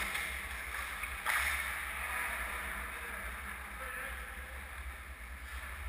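Indoor ice rink ambience: a steady low rumble and hiss, with one sharp knock a little over a second in.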